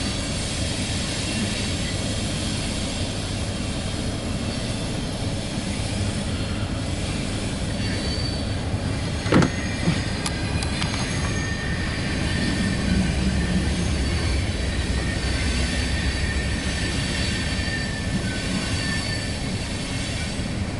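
Loaded coal hopper cars rolling past at steady speed: a continuous rumble of wheels on rail with faint high-pitched wheel squeal. A brief sharp squeak about nine seconds in.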